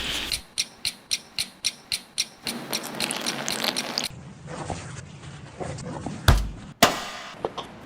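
Kitchen and cooking sounds cut together into a rhythm: a run of quick sharp ticks, about four a second, then a short hissing stretch, then two heavy knocks about half a second apart near the end, the first with a deep thud.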